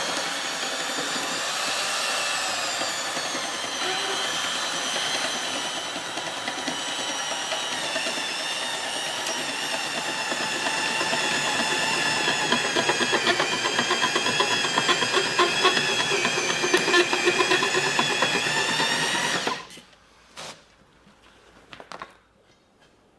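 Electric power drill running steadily under load with a motor whine and some rattle, then stopping abruptly near the end, followed by a couple of small clicks.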